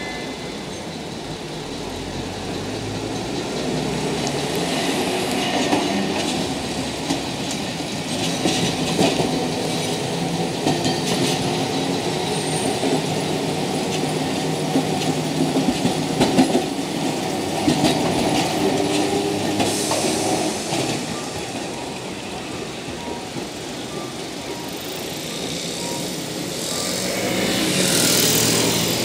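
Tosaden Kotsu type 800 streetcar running through a street intersection on a curve, its wheels clicking and clattering over rail joints and crossings for several seconds in the middle, over steady traffic noise. Near the end a louder, higher hiss swells up.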